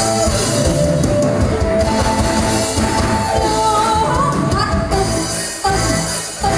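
Live band music: a woman sings long, gliding notes through a microphone over drum kit, congas, electric guitar and keyboard. The band drops out briefly twice near the end.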